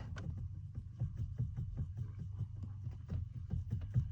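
Rapid, irregular light knocking from a BMW X1 E84 steering column as the steering shaft is worked back and forth, several knocks a second over a low hum: play in the column that the owner suspects comes from a worn plain bearing inside the shaft.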